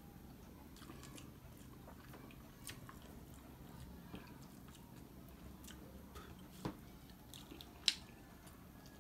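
Faint chewing and small clicks of fingers picking apart fish on a plate, over a steady low room hum, with a couple of sharper clicks near the end.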